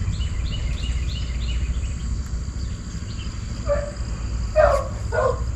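Rural outdoor ambience: a steady high insect drone with a quick run of chirps in the first two seconds, over a low rumble. A few short animal calls come about four to five seconds in.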